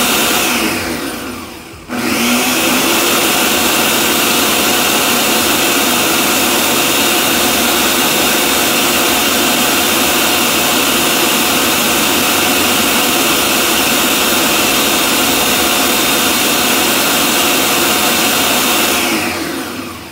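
Electric blender running steadily at high speed, blending a liquid mango kulfi batter with cream. Its sound dips and comes back abruptly about two seconds in, and dies away near the end.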